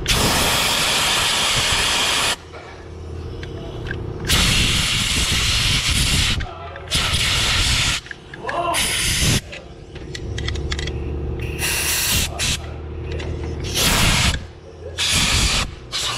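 Compressed-air blow gun hissing in about seven bursts of one to two seconds, blowing debris out of the lifter valley of a GM 5.3 L LS V8 engine block.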